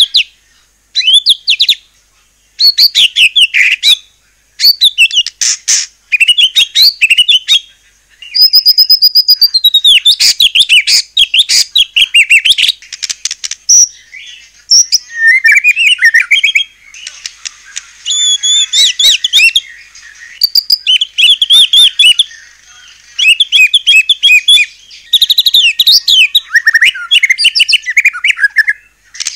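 White-rumped shama singing loudly: a rapid, varied song of high whistles, chatters and trills in phrases a second or two long, separated by short pauses.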